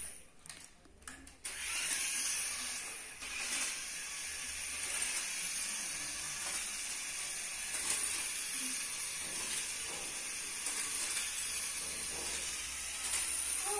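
Small electric motor and gears of a toy RC off-road car whirring steadily as it drives, starting about a second and a half in after a few light clicks.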